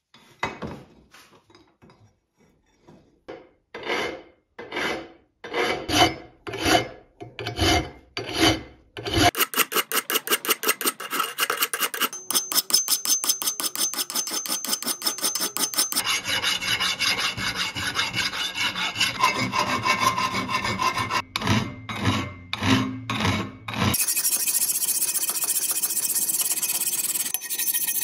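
Hand abrasive strokes scraping back and forth on the corroded steel of a small knife, taking off rust. The strokes are slow and spaced at first, grow louder, then turn fast and dense from about a third of the way in.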